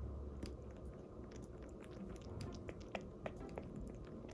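Twelve-day-old kitten suckling milk from a feeding bottle: soft, wet sucking clicks and smacks at an irregular pace.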